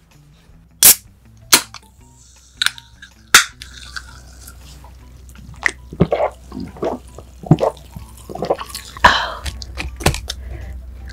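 Close-up handling sounds of food and its packaging: four sharp clicks in the first few seconds, then a run of crackling, crunchy rustles from the middle onward.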